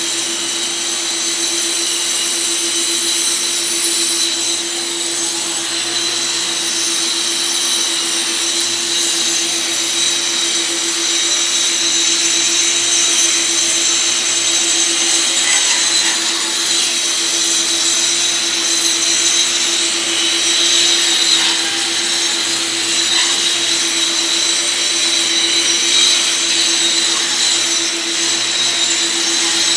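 Angle grinder with a dust shroud running without a break as it grinds thinset mortar off a concrete floor: a steady high grinding hiss over a constant motor hum.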